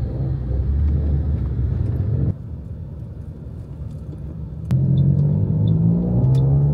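Car engine and road noise heard from inside a moving taxi's cabin. The sound drops abruptly about two seconds in and comes back up just before five seconds.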